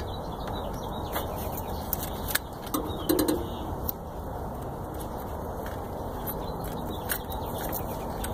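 Scattered light metallic clicks and taps as a long metal tool works among the engine's parts, with a small flurry about three seconds in, over a steady low background rumble.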